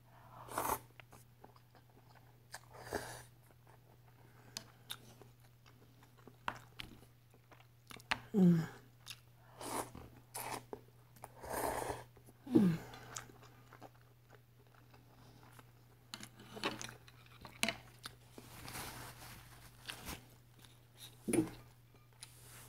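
Close-miked eating of ramen noodles with broccoli: chewing, biting and slurping in short, irregular bursts, with a few louder gulps.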